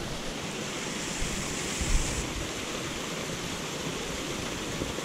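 Steady rushing of a small river waterfall pouring over a stone weir into a pool, with one brief low thump about two seconds in.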